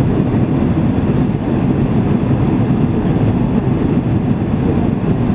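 Steady cabin noise inside a Boeing 767-300ER: a constant low rumble of the jet engines and airflow past the fuselage, heard from a seat near the wing.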